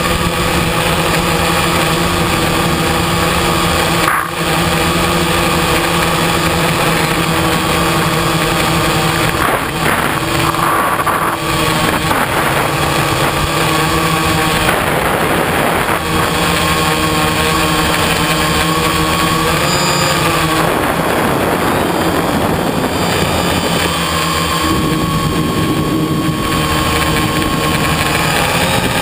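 Motor of a radio-controlled aircraft running steadily, heard loud and close from its onboard camera with wind rushing over the microphone. The pitch shifts a little with the throttle about two-thirds of the way in.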